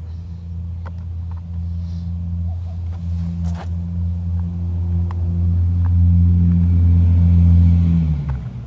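A 40v cordless string trimmer's electric motor running with its head spinning and no string out: a steady low hum that grows slowly louder, then winds down as the trigger is let go near the end.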